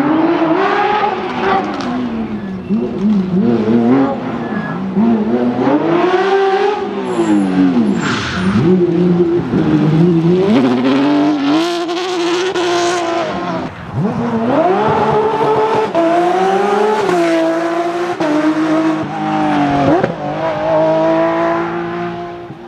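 Porsche 911 GT3 rally car's flat-six engine revving hard, its pitch repeatedly climbing through the revs and dropping at gear changes and lifts. In the second half it holds a long high note before the level falls away near the end.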